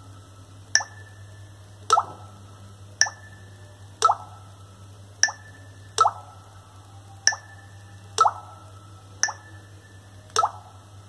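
Redmi 4 smartphone's fingerprint-unlock system sounds played through its speaker in a repeated unlock demonstration: short clicks about once a second, alternating between a higher and a lower one. The fingerprint sensor is slow: the sound plays about a second before the phone unlocks.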